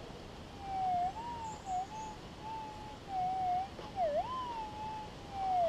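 Gold-prospecting metal detector's audio: a single tone that swoops up and dips down in pitch over and over as the coil is swept over the freshly dug hole.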